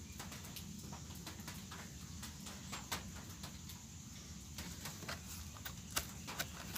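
Scattered light clicks and taps from a digital multimeter and its test probes being handled, with a louder click about three seconds in and another about six seconds in when a hand presses on the meter, over a steady low hum.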